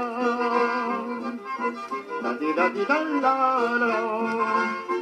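Accordion-led band playing an instrumental waltz passage, with a moving melody over a steady accompaniment, played back from a vinyl LP.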